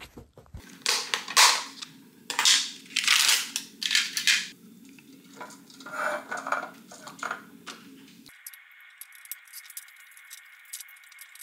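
Silicone pastry brush scraping and dabbing soft butter from a plastic tub into the cups of a metal canele tray, heard as a run of short crackly strokes, loudest in the first few seconds.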